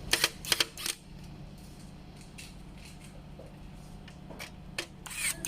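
Sharp clicks and knocks of the car air-conditioner control panel's parts being handled and fitted together, several in the first second and a few more near the end, over a steady low hum.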